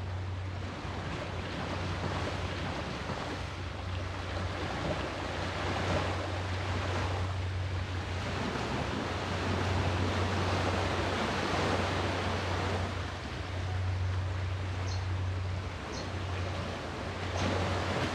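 Sea surf breaking and washing ashore, the roar swelling and easing every few seconds, over a steady low hum.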